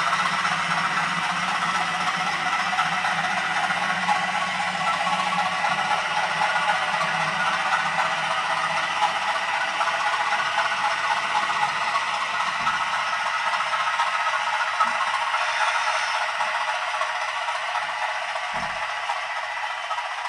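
00 gauge DCC-sound model train running on the layout: a steady rattling clatter, with a low hum underneath that fades out about nine seconds in, and the whole sound easing off slowly near the end.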